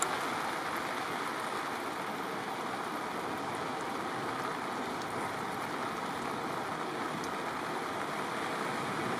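Steady rushing noise of rough sea and wind, even throughout.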